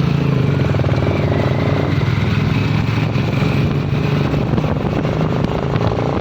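Royal Enfield Bullet 350's single-cylinder engine running steadily through a long Punjab aftermarket silencer, a loud, low exhaust note.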